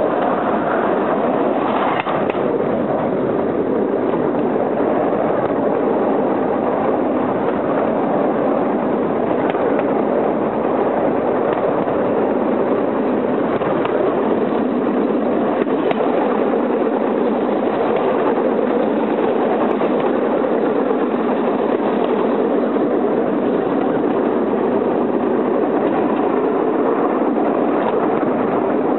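Cambodian bamboo railway car (norry) running along the track: a steady engine drone mixed with the rattle of the wheels and platform over the rails, with an occasional knock from a rail joint.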